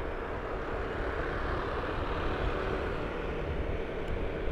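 Steady running noise of a moving vehicle: engine hum with road and wind rumble, even throughout.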